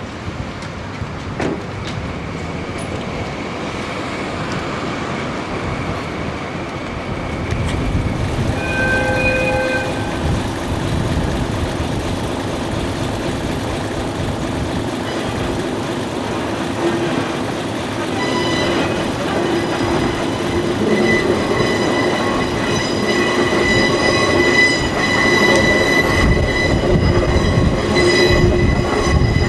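A train of KiHa 40-series diesel railcars hauled by a diesel locomotive rumbles along the track, growing louder. A short tone sounds about nine seconds in. In the second half, high wheel squeal sets in and grows stronger towards the end.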